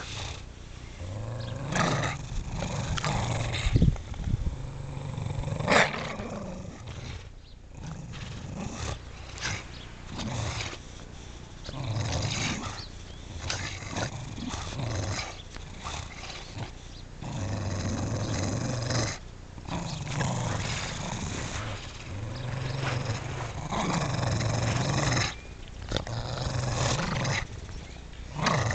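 Two bulldogs growling in a tug-of-war over a football: long, low growls that come and go in waves with short breaks. Two sharp louder sounds come about four and six seconds in.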